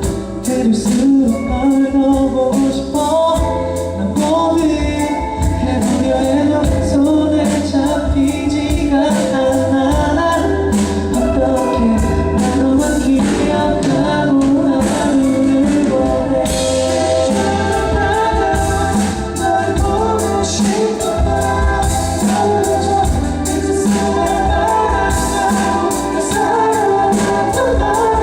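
A pop ballad performed live by a band: a male lead singer over backing vocals and instruments, with a steady drum beat.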